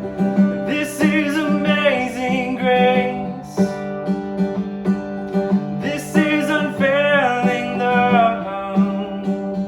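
Worship music: a singer's voice over strummed acoustic guitar.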